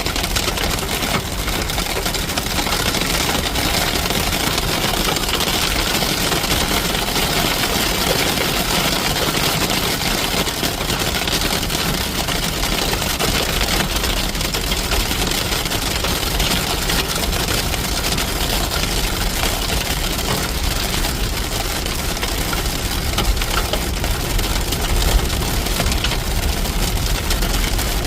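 Hail hitting a Toyota Tacoma pickup truck in a dense, unbroken patter of small impacts, heard from inside the cab.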